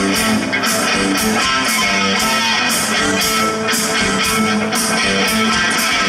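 Live band playing an instrumental passage: strummed electric guitar with accordion over drums, whose cymbals keep a steady beat of about two hits a second.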